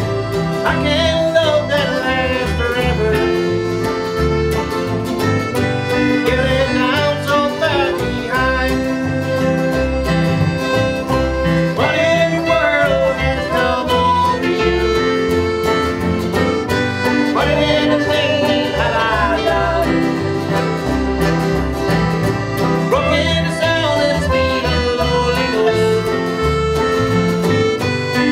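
Acoustic country-style band music: guitar over a steady rhythmic bass, with a melody line in phrases every few seconds.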